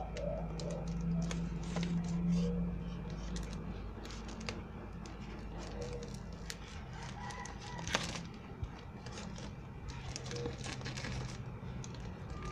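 A plastic courier mailer rustling and crinkling in the hands while scissors click and snip at it to cut the package open, with a sharp click about 8 seconds in. A low drone sounds underneath for the first few seconds.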